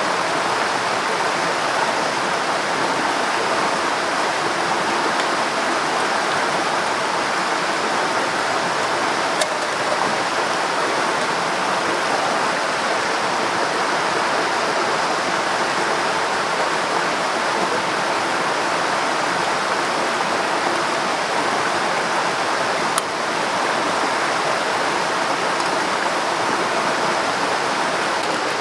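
Steady rushing water, an even and fairly loud wash of noise, with a single sharp click about three-quarters of the way through.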